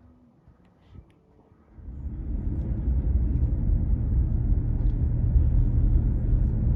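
A vehicle pulling away: a steady low rumble of engine and road noise sets in about two seconds in and holds.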